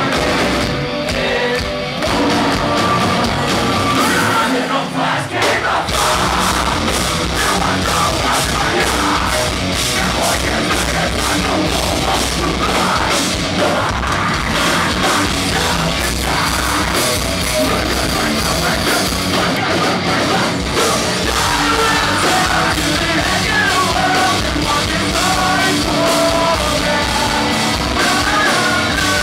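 Metalcore band playing live: distorted electric guitars and drums with a singer's vocals, loud throughout, with the low end dropping out briefly about five seconds in.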